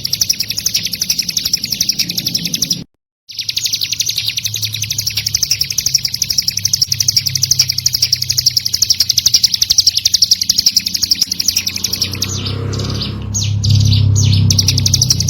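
Ciblek gunung (a prinia) singing a fast, unbroken trill of rapid, high repeated notes, with a brief break about three seconds in. A low hum rises under it near the end.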